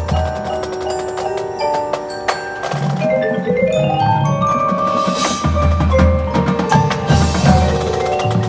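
Marching band front ensemble playing: mallet percussion notes with a rising run about three seconds in, over wood-block-like clicks and low drum beats.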